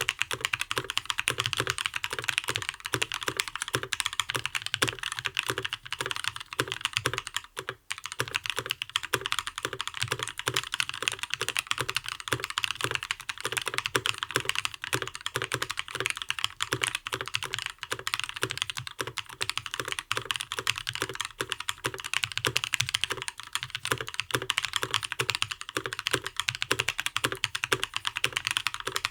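Continuous fast typing on a custom mechanical keyboard with lubed Gazzew Linear Thock linear switches, ePBT Soju PBT keycaps, an aluminium plate and a foamed Gentoo case: a dense stream of keystrokes, with a brief pause about seven and a half seconds in.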